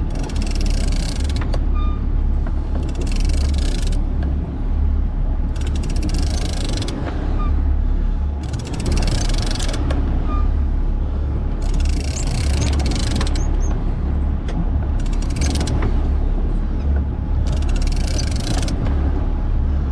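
Sport-fishing boat's engine running with a steady low rumble, under a hissing rush that swells and fades about every three seconds.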